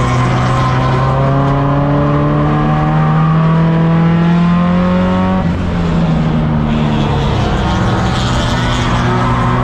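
Tuner race car's four-cylinder engine at full throttle from inside the cabin, its pitch climbing steadily, then the driver lifts off suddenly about halfway through for the turn and the engine comes back on, climbing again.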